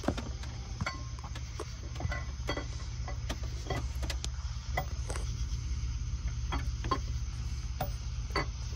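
Irregular light metallic clicks and clinks of a lube-coated camshaft being worked into the engine block, metal tapping on metal, over a steady low hum.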